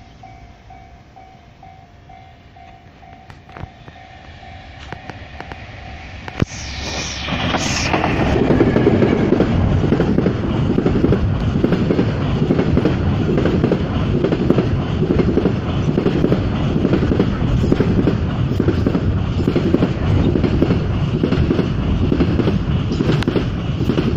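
A level-crossing warning bell rings at first, then about six seconds in a train arrives and passes close by, its wheels clattering in an even rhythm over the rail joints until the end.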